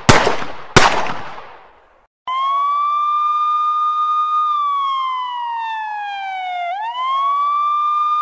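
Two sharp bangs with long ringing decays, like gunshots, in the first second. From about two seconds in, a police siren wails: it holds a steady pitch, slowly falls, then sweeps quickly back up near the end and holds again.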